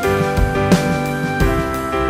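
Music: held instrumental chords over a steady beat, about one drum hit every 0.7 seconds.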